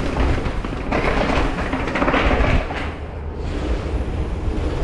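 Wind buffeting and low rumble on a helmet-mounted action camera's microphone while riding a mountain bike, swelling about a second in and again around the middle.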